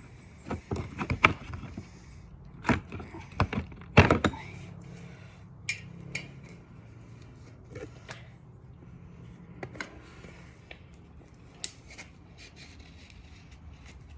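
Hands working a BMX tire and inner tube off the wheel rim: a quick run of knocks and thumps in the first four seconds, the loudest about four seconds in, then a few light clicks and taps.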